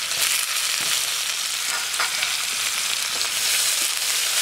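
Sliced onions sizzling in hot mustard oil in a metal wok, a steady frying hiss, while a metal spatula stirs and scrapes them against the pan.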